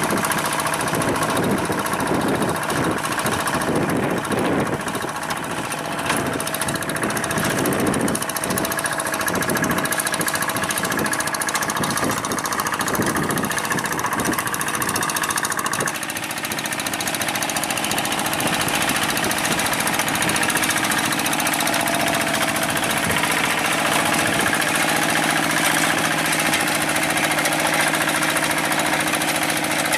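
Two-wheel hand tractor's single-cylinder diesel engine running under load, chugging unevenly as it works through flooded paddy mud. About halfway through, the sound changes suddenly to a steadier run.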